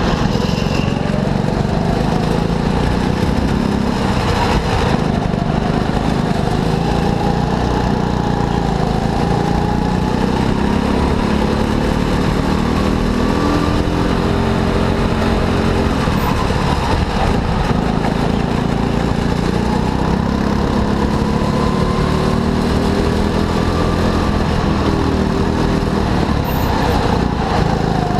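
Go-kart engine running hard, its pitch rising and falling again and again as it revs up and eases off.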